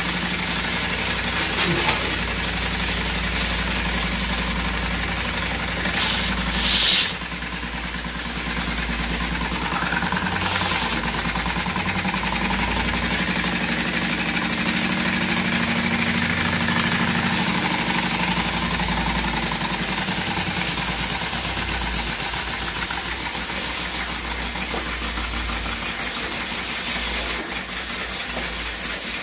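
Homemade single-cylinder steam engine, with a syringe-barrel cylinder and an angle-grinder-wheel flywheel, running fast with a steady hiss of escaping steam. A louder burst of hiss comes about six seconds in, and the running turns uneven near the end.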